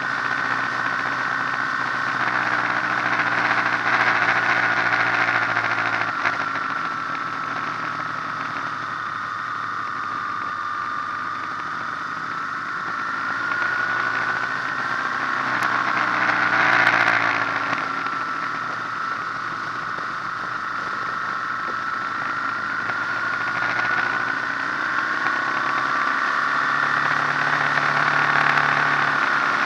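Motorcycle engine running steadily while riding along a road, its note drifting up and down with the throttle, over road and wind noise; briefly louder about halfway through.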